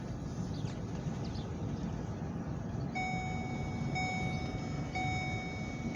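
A car's seatbelt warning chime starts about halfway through and repeats about once a second, over the steady low rumble of the Ford rolling slowly.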